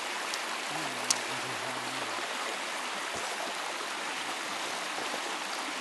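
Steady rushing of a nearby stream, with a single sharp click about a second in.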